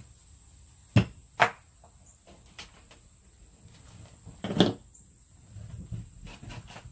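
Two sharp knocks about a second in, then a louder knock around four and a half seconds, as a wooden rolling pin and a roll of plastic stretch wrap are handled and set down on a wooden table, with softer rustling after. A steady high insect drone runs underneath.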